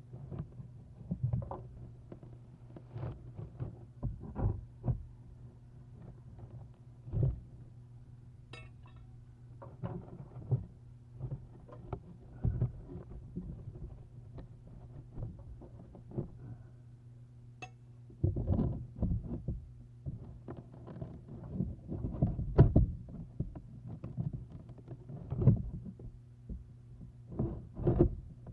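Irregular thumps, knocks and scrapes on the nest box as it is handled and cleaned, busier in the second half, over a steady low electrical hum.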